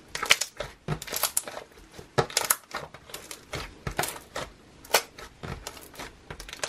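Thick silver glue-and-borax slime squeezed and kneaded by hand, giving off irregular crackling clicks.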